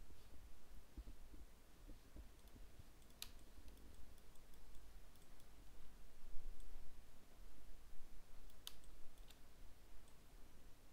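A few sharp computer mouse clicks, two louder ones about three seconds and eight and a half seconds in and some fainter ones, over a low steady hum.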